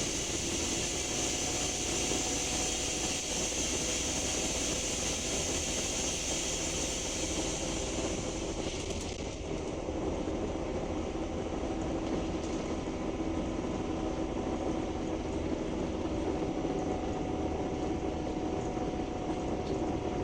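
Scania K310UB bus under way, its 9.3-litre five-cylinder Scania DC9 diesel engine running steadily under the road noise. A high hiss drops away about nine seconds in.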